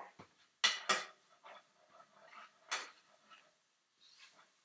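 Spatula scraping and knocking against a skillet while mushrooms are stirred and pushed into the pan's corners. There are two sharp scrapes close together about a second in, and another a little later.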